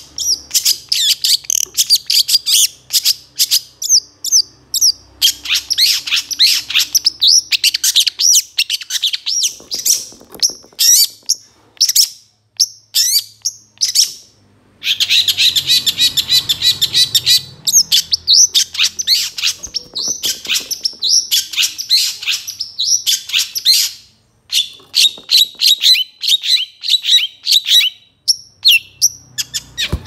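Long-tailed shrike (cendet) singing a fast, dense run of chirps, trills and varied imitated phrases, with a few brief pauses.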